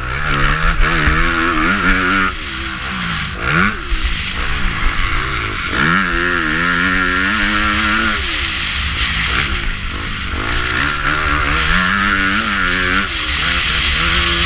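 450-class motocross bike engine at race speed, revving up and dropping back several times as the rider shifts and rolls off for corners, with the hardest pulls about six and twelve seconds in.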